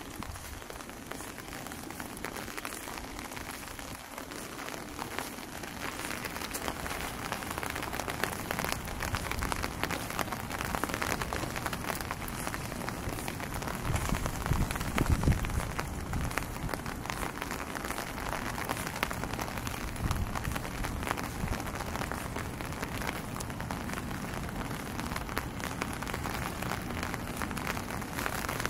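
Steady rain falling in a city street, with a louder low swell for a couple of seconds about halfway through.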